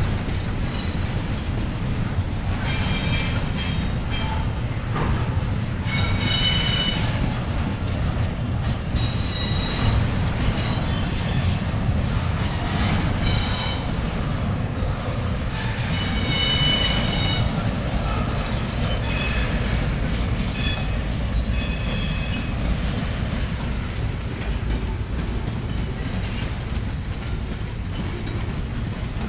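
Double-stack intermodal freight cars rolling past on the rails: a steady low rumble of wheels and cars, with high-pitched wheel squeal that rises and fades several times.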